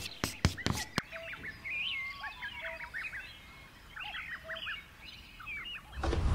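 Small songbirds chirping: many short calls sliding up and down in pitch, with a few sharp clicks in the first second. Music comes in loudly right at the end.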